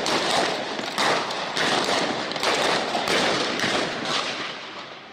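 A string of sharp, loud bangs in quick succession, roughly one every half second to second, each ringing out with echo, dying away toward the end.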